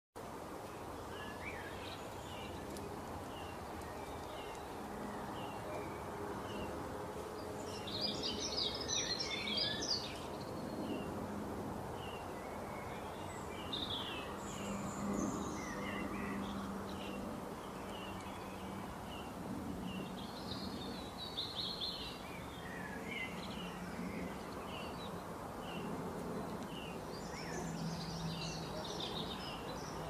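Many small songbirds chirping and twittering, with a dense burst of song about eight seconds in and more flurries later, over a steady background rush. A low hum comes and goes beneath them.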